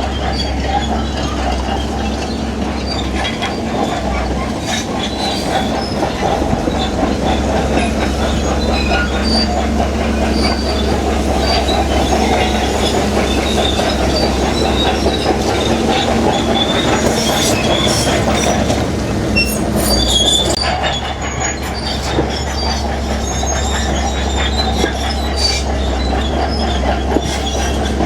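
Crawler bulldozer working: diesel engine running steadily under load while the steel tracks clank and squeal, with many sharp knocks mixed in.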